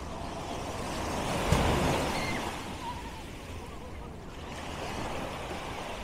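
Sea surf on a sand beach: a wave breaks and washes up, swelling to a peak about a second and a half in and then fading, with a second, smaller swell near the end.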